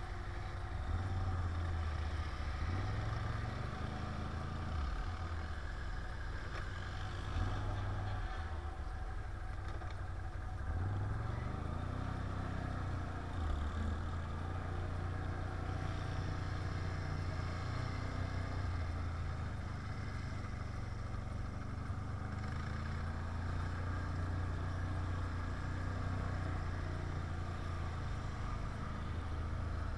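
Can-Am 1000 quad's engine running under way off-road, its revs rising and falling several times as the throttle is worked.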